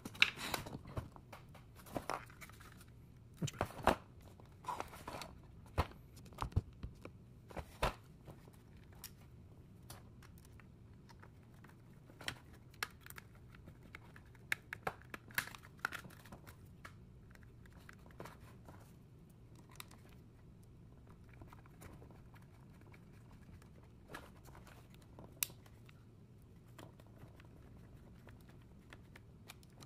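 Small screwdriver driving screws into a head unit's plastic button-panel housing, with clicks, taps and scrapes of the plastic and circuit-board parts handled on cardboard. A cluster of knocks in the first several seconds gives way to sparse light clicks.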